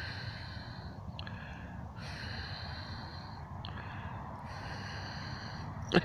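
Breathing close to the microphone, several long breaths about a second each, over a steady low rumble.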